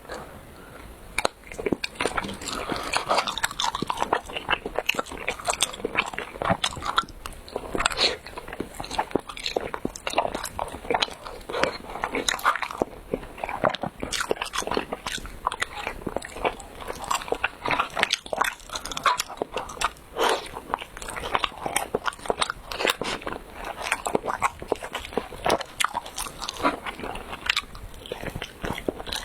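Close-miked chewing and biting of chewy rice cake: a continuous run of sticky, wet mouth sounds and small clicks.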